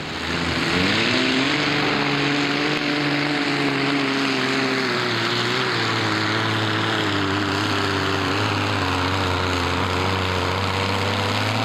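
Modified pulling tractor's big multi-cylinder engine at full throttle. It comes in loud at once, its pitch rising over the first second as it launches with the weight sledge, then holds steady as it pulls down the track.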